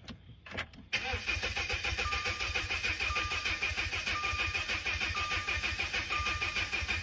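Rebuilt Audi 2.0T turbocharged four-cylinder engine being cranked on the starter for its first start after the rebuild: a steady, even cranking that kicks in about a second in and keeps going without catching. A short electronic beep sounds about once a second over it.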